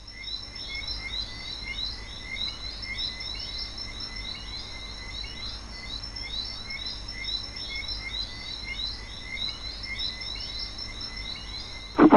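A dense chorus of short, high chirping calls repeating rapidly and steadily, like a night-time nature ambience. Right at the end there is a sudden loud thump.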